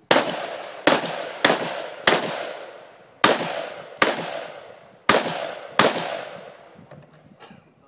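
Eight AR-15 rifle shots fired in a quick stage run, each a sharp crack with a decaying echo. Four come in fast succession, then two pairs follow with short pauses between them.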